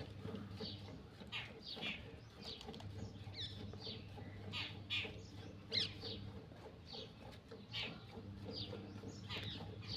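Faint streams of milk squirting into a steel pail as a desi cow is milked by hand. Each squirt is a short, high hiss, often in pairs from alternating hands, roughly one or two a second.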